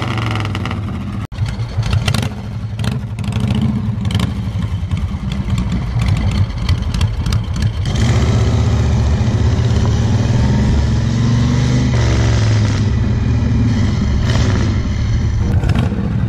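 Harley-Davidson Shovelhead V-twin motorcycle engines running, across clips joined by abrupt cuts. One cut comes a little over a second in and another about halfway. The second half holds a steady, deep engine run.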